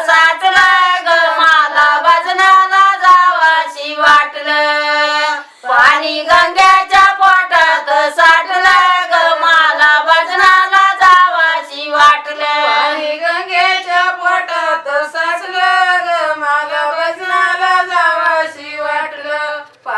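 Women singing a Marathi devotional bhajan, with hand claps keeping time. A long held note comes about four seconds in, followed by a brief break before the singing resumes.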